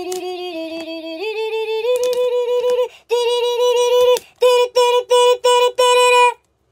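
A high singing voice holds a few wavering notes that step up in pitch, then sings about five short repeated notes on one pitch and stops.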